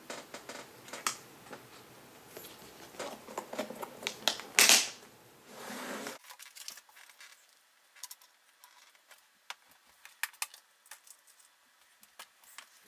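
Handling noise: scattered clicks and rustles, with one louder rustle just before five seconds, then fainter, sparser clicks after about six seconds.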